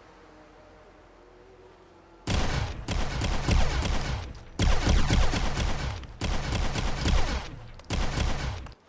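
Enforcer pistol firing long strings of rapid shots in about four runs, beginning after about two seconds of quiet and cutting off just before the end.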